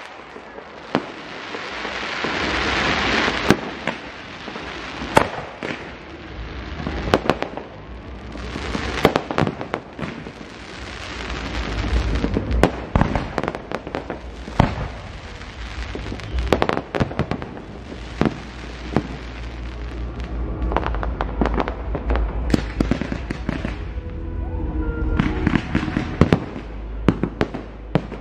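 Aerial fireworks display: a rapid series of sharp bangs from launching and bursting shells, over a hissing crackle that swells and fades every few seconds, with a low rumble underneath.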